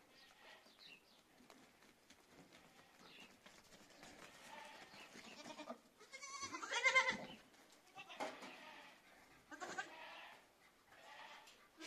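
Goats bleating several times, a string of short calls with the loudest about six seconds in.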